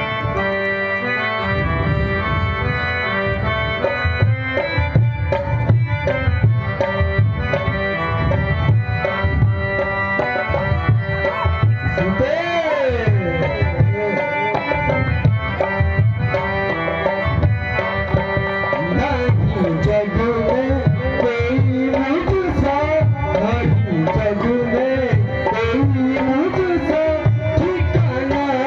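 Live stage music: a reed keyboard, harmonium-like, holds steady chords over fast tabla-style hand-drum strokes. Near the middle, and then steadily from about two-thirds of the way in, a sliding, wavering melody line rises over the accompaniment.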